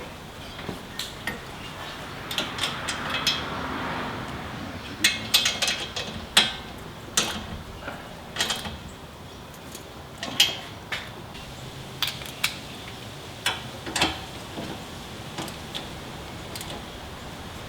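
Metal hand tools clicking and clanking in scattered short bursts as bolts on the car's front suspension are tightened.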